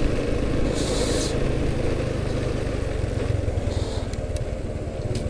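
Motorcycle engine running steadily while riding at an even speed, with road and wind noise; a short hiss about a second in.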